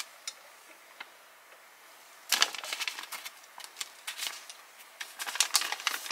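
Plastic sleeve of an MRE flameless ration heater crinkling and rustling as it is pulled open by hand, starting about two seconds in and growing busier toward the end; before that only a couple of faint clicks.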